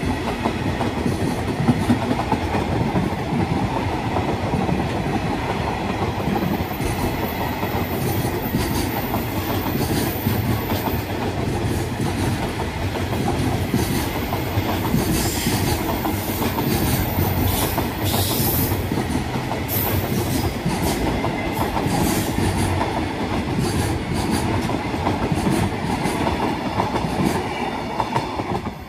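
JR Freight container train's wagons rolling past close by: a steady rumble and clatter of steel wheels on rail, with short high squeals from the wheels in the middle stretch. The noise starts to fall away at the very end as the last wagon passes.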